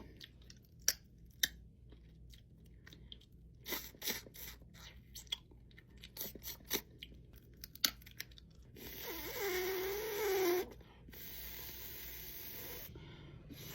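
Crab shell cracking and crunching in short sharp snaps as it is broken and picked at for the meat. About nine seconds in comes a strained, hummed vocal sound of effort, followed by a steady hissing suck at the shell.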